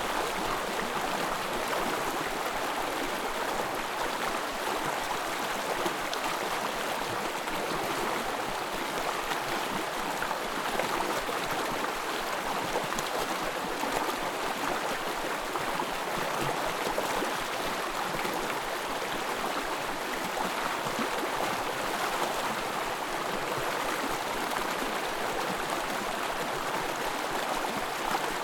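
Small forest stream running and babbling steadily over its bed.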